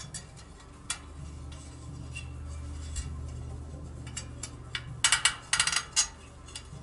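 Bicycle wheel spokes and nipples clicking and clinking as they are worked loose at the rim, with a quick cluster of metallic clinks about five seconds in.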